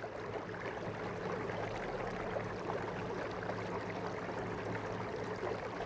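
Minn Kota 50 lb thrust electric trolling motor running steadily at speed with a low, even hum, over the rush and splash of water in the wake behind the canoe.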